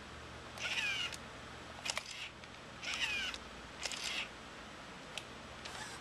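Robosapien toy robot's arm gear motors whirring in several short bursts of about half a second each, with the pitch sliding as they start and stop, and sharp clicks in between.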